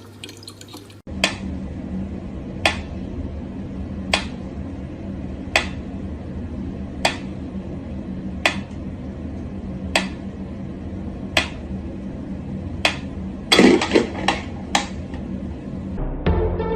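Sharp, hard taps repeating evenly about once every second and a half over a steady low hum, then a quick flurry of several taps near the end.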